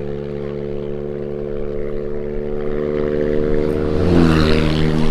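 Airboat engine and propeller running steadily, a loud, even drone. About four seconds in it grows louder, with a slight dip in pitch and a rush of propeller wash.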